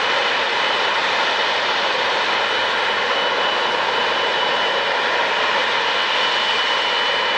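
Jet airliner engines running steadily: an even rushing noise with a thin high whine that grows a little stronger near the end.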